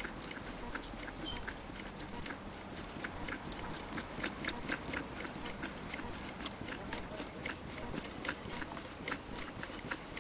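Antique Willcox & Gibbs sewing machine running, its mechanism clicking steadily about five times a second.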